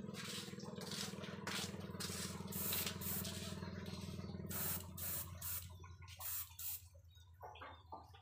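Airbrush spraying paint in short, repeated bursts of hiss, about two a second, over the steady hum of a small air compressor. The bursts grow fainter and sparser near the end.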